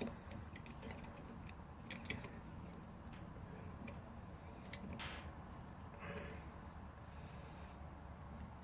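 Faint metallic clicks and scraping of a screwdriver working a brush retaining spring into place on a Lucas dynamo.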